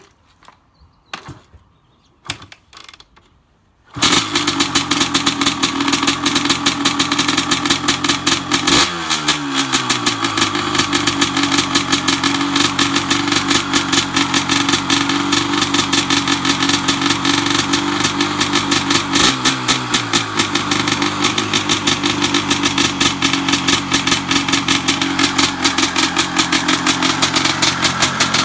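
A few short knocks, then a 2001 Honda CR250's single-cylinder two-stroke engine fires up suddenly about four seconds in and keeps running with a rapid, steady beat. Its pitch dips and recovers twice.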